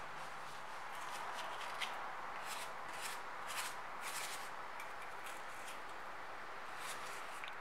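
A pastry brush stroking vegetable oil onto the tops of freshly baked bread rolls: a series of short, soft scratchy brush strokes over a steady background hiss.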